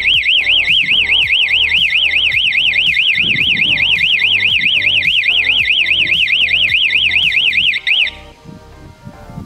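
Italian Alarm Futura wireless outdoor alarm siren sounding, set off remotely from the app: a loud, high-pitched warble rising and falling about five times a second. It cuts off suddenly about eight seconds in.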